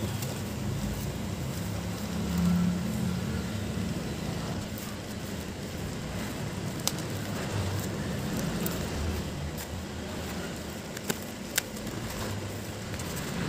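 Scissors snipping and black plastic packaging rustling as a parcel is cut open, with a few sharp clicks, one about halfway and two close together near the end. A steady low rumble runs underneath.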